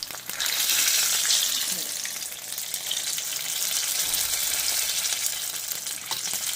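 Turon, banana and jackfruit spring rolls, frying in hot oil: a steady sizzle with crackling spatter. It swells about half a second in, then settles to a slightly lower, even sizzle.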